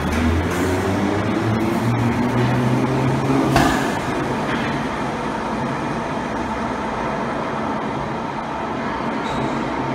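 London Underground 1972 Stock tube train accelerating out of the platform: the traction motors' hum rises in pitch over the first three seconds or so, with a sharp click about three and a half seconds in. After that a steady rumble with a thin, high, steady tone carries on as the next 1972 Stock train comes into the platform.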